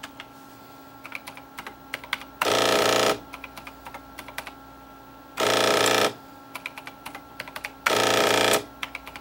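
Keys clicking on an HP-9825B desktop calculator's keyboard, with three bursts of under a second each, about two and a half seconds apart, from its built-in thermal strip printer printing a line each time. The printer is working after being cleaned out.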